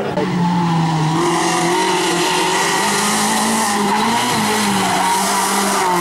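Renault Twingo rally car's engine held at high, steady revs, stepping up slightly about halfway, with tyres squealing as it slides through a tight hairpin.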